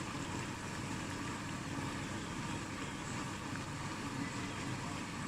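Pakoras sizzling as they deep-fry in hot oil, a steady even noise with a low rumble underneath.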